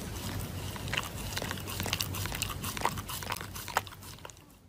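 A dog chewing and tearing at a paper tissue: irregular crackles and clicks that fade away near the end.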